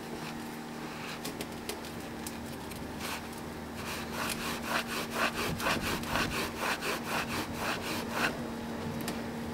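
Shop rag being scrubbed back and forth inside the freshly honed bore of a drum-brake wheel cylinder held in a vise, wiping out hone residue and brake cleaner. A few light rubs at first, then a quick, even scrubbing of about four strokes a second from about four seconds in, stopping near the end.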